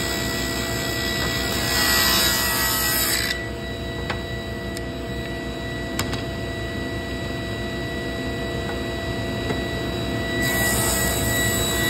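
Table saw ripping a thin strip of wood trim for about the first three seconds, then the blade spinning free with a steady hum and a few light knocks. It bites into the next piece near the end.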